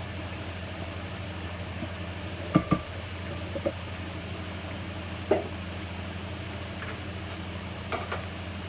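Spoons knocking and clinking against cookware: a few sharp clacks, two close together about two and a half seconds in, then one more and another a little after five seconds. Under them is a steady low hum.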